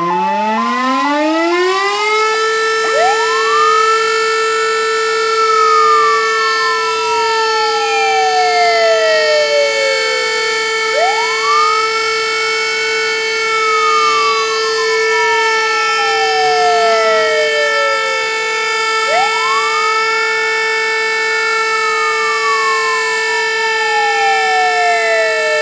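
Fire station siren winding up over the first two seconds and then holding one steady, continuous tone: the alarm sounded at 'W-hour' to commemorate the Warsaw Uprising. Behind it a second siren rises quickly and falls slowly, about every eight seconds.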